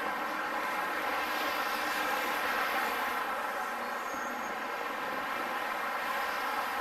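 Steady noise of road traffic passing on busy multi-lane city roads, with no single vehicle or event standing out.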